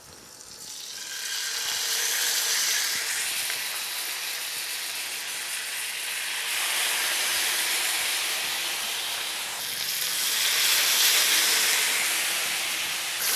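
Pieces of pressure-steamed, masala-coated fish sizzling as they are laid into hot butter and oil in a frying pan, a loud steady hiss that swells each time a new piece goes in.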